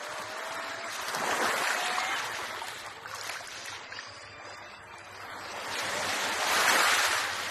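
Small sea waves washing in over a pebble beach, the surf swelling twice: about a second in and again around six to seven seconds in as a wave breaks at the shore.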